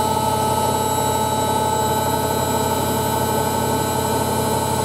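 Hoover Ecologic 1300 washing machine spinning at a steady speed, a loud, even motor whine with the drum's rushing hum.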